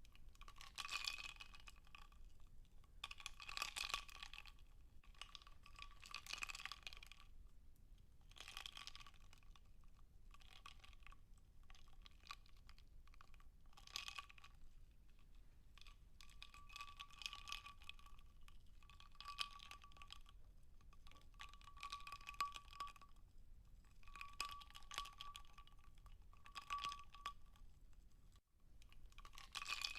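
Ice cubes in a glass of water, crackling and clinking quietly in clusters of small cracks every two or three seconds, with a thin ringing tone that comes and goes with them.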